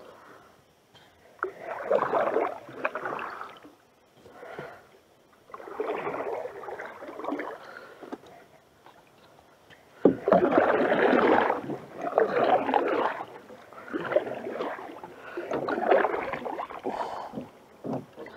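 Canoe paddle strokes close by: the paddle dips and pulls through the water with a splashing swish, stroke after stroke with short pauses between. From about ten seconds in the strokes come closer together, the loudest starting with a sharp knock.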